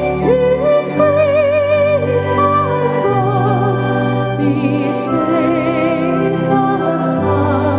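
A hymn sung by a voice with wide vibrato over held, sustained accompaniment chords whose bass notes change every second or so.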